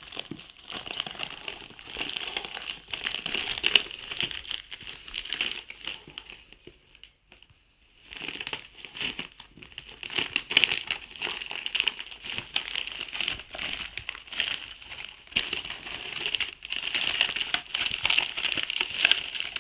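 Grey plastic poly mailer bag crinkling and rustling as it is handled and pulled open by hand. There is a brief quiet pause about a third of the way through.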